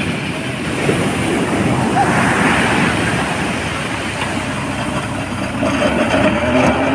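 Heavy surf breaking on the shore, mixed with a tractor's engine running as it hauls a fishing boat up the beach on a rope.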